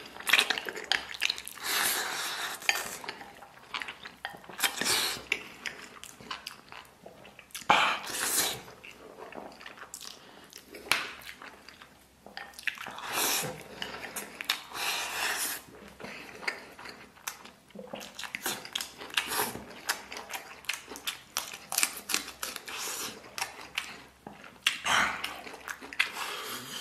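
Wooden chopsticks clicking and scraping against a porcelain rice bowl as rice and braised pig's trotter are shovelled in, with close-up sounds of eating and chewing. The sounds come in irregular clicks and short bursts.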